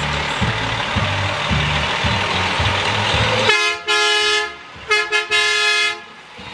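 Cement mixer truck's horn blasting: one blast about three and a half seconds in, then two quick toots running straight into a second blast of about a second.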